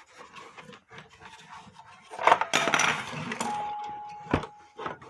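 Handling noise from a wooden cuckoo clock case being turned and opened: scattered knocks and light clinks, with a louder clattering rustle about halfway through and a sharp knock near the end. A faint steady tone sounds for about a second and a half after the clatter.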